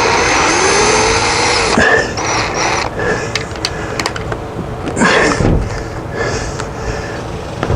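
Cordless drill running for about two seconds, its motor pitch rising and then sagging as it drives a fastener into wood, stopping suddenly. A few short bursts and clicks follow.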